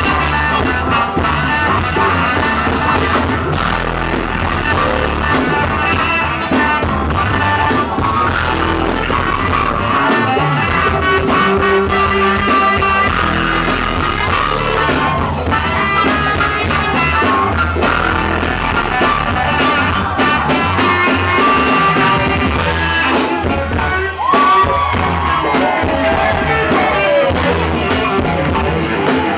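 Live funk band playing: drums, bass, electric guitars, keyboards and baritone saxophone, with singing.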